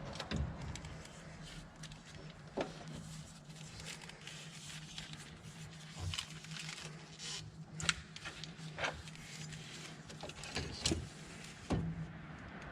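Alternator of a 1993 Toyota Corolla being worked loose and lifted out of the engine bay: scattered knocks, clicks and scrapes of metal against the brackets, over a steady low hum.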